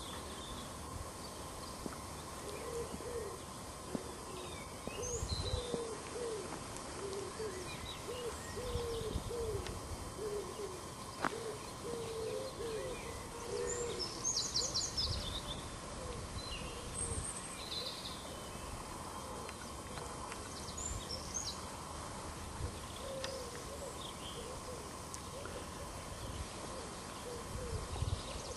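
Birds calling: a run of short, low calls in quick succession, heaviest in the first half and returning later, with high chirps and short trills now and then.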